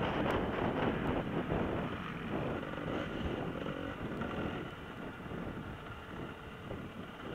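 Off-road motorcycle engine running, getting quieter from about two seconds in.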